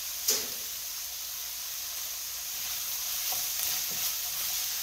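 Chopped onions, peppers and carrots sizzling in oil in a ceramic-lined frying pan, a steady hiss, with one sharp click about a third of a second in. In the second half a utensil stirs the vegetables, scraping against the pan.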